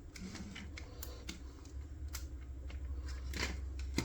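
Scattered small clicks and light knocks of plastic blaster parts being handled, the sharpest near the end, over a steady low hum.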